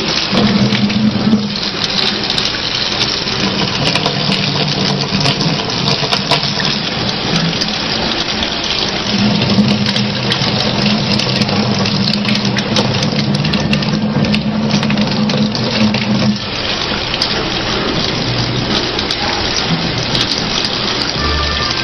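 Tap water running steadily from a faucet into a sink, with a low hum underneath that comes and goes.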